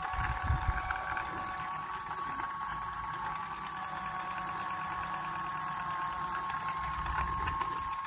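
Battery-powered toy sewing machine running: the steady whine of its small electric motor.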